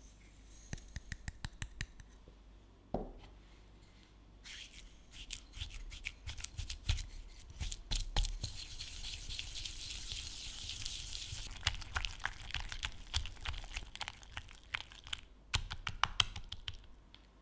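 A quick run of taps as sugar is shaken from a small wooden cup into a glass bowl, and a knock as the cup is set down. Then a black-coated whisk beats mascarpone and sugar by hand in the glass bowl: a steady scraping, dense with clicks of the wires against the glass, until it stops near the end.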